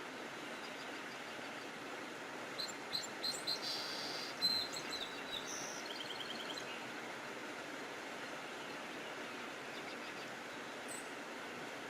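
Songbirds chirping: a run of short, high chirps a few seconds in, then a quick trill, and one more chirp near the end. Under them runs a steady outdoor hiss.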